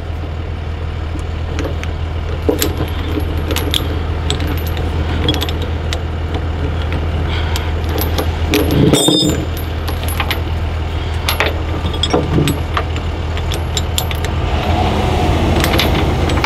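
Steel tie-down chain links clinking and rattling in irregular clicks as the chain is pulled through and hooked up to a binder, over a steady low hum like an idling engine.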